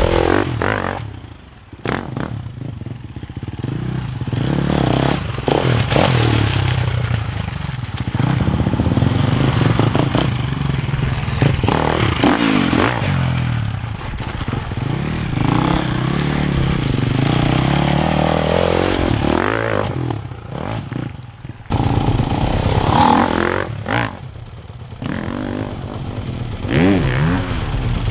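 Husqvarna 350 four-stroke single-cylinder motocross bike being ridden hard on a dirt track, the engine revving up and falling back again and again as the throttle is worked. It is near at times and farther off at others, and the sound breaks off sharply a few times.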